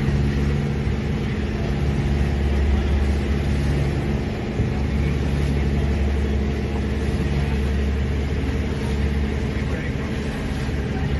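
Boat engine running steadily, a deep even drone over a steady hiss.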